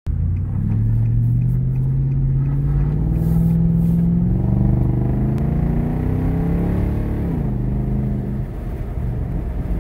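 Nissan Patrol Y62's 5.6-litre V8 accelerating through an aftermarket exhaust, the note climbing steadily in pitch for about seven seconds, then dropping sharply and settling lower.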